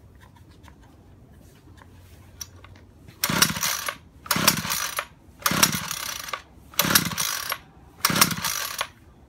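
Two-stroke petrol strimmer being pull-started: five hard pulls on the recoil starter cord, each a short whirring rush that drops in pitch as it slows, without the engine catching. The engine is cold and on choke.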